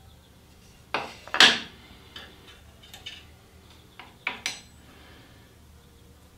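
A wooden block and small parts being set down and shifted on the metal top of a table saw: a series of sharp knocks and clacks, the loudest about a second and a half in and a quick group of three around four seconds in.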